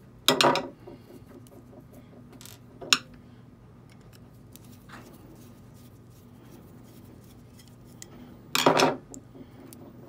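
Small screwdriver working the screws out of a steel muzzleloader lock plate, with a few sharp metallic clicks and clinks. The loudest come about half a second in and near the end.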